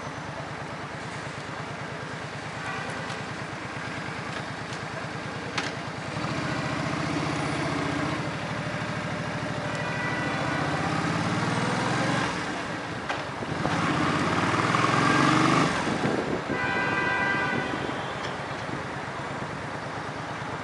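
A motor engine running steadily, growing louder through the middle and then easing off, with a single click about a quarter of the way in and a brief high tone near the end.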